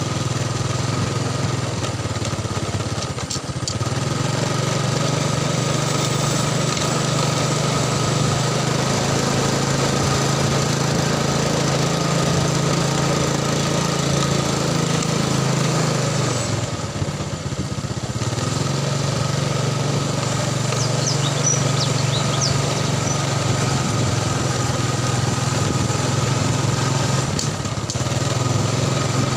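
Small motorcycle engine running steadily under way. The engine note drops briefly about 3 seconds in and again around 17 seconds, then picks back up.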